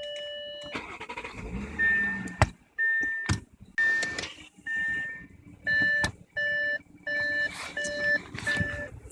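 Car warning chime beeping over and over, about one and a half short beeps a second, starting about two seconds in, with a couple of sharp clicks among them. A low mechanical hum comes before the beeps.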